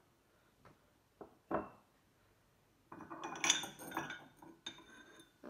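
Small handmade glazed ceramic pots being picked up and set down on a hard tabletop: three light knocks, then about two seconds of clattering and clinking as pots touch each other, ending in short ringing tones from the ceramic.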